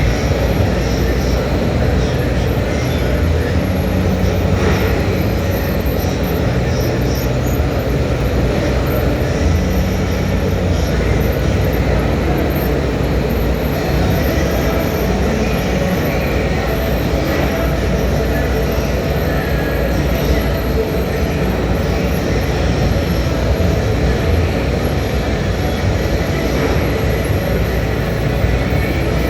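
Conveyor-belt annealing furnace running forward under load: a loud, steady mechanical roar, with a few faint knocks scattered through it.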